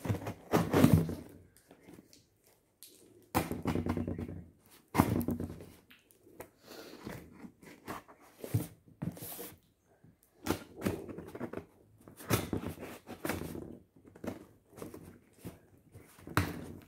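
Scissors cutting through packing tape on a cardboard box, with the tape tearing and the box knocking and rustling as it is handled, in irregular bursts that are loudest about a second in and again about five seconds in.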